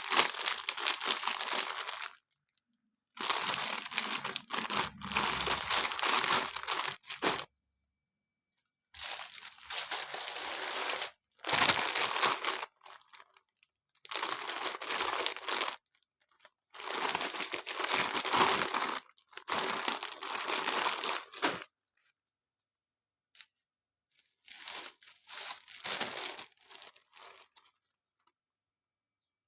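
Plastic packaging crinkling and tearing as balloon packs are handled and opened, in about eight bouts of a second or more each, with short silent pauses between them.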